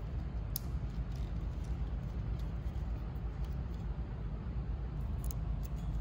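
Small plastic clicks from a wiring connector housing and its terminals being handled, once near the start and several near the end, over a steady low background rumble.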